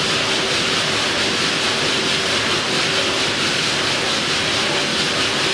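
A 240 hp stationary diesel engine driving a brick factory's machinery through large flywheels and transmission belts, running steadily: a loud, even mechanical noise with a fast, dense ticking.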